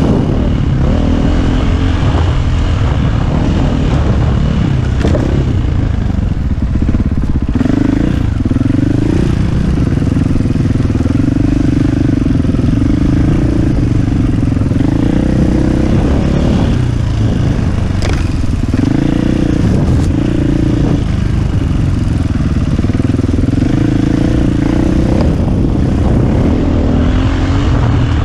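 KTM EXC450 single-cylinder four-stroke enduro engine running under load while riding off-road, the throttle opening and closing so the engine note keeps rising and falling, with a few sharp knocks along the way.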